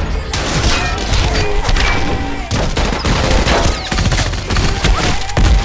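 Rapid movie gunfire sound effects from pistols, many shots in quick succession with a heavy low hit near the end, over background music.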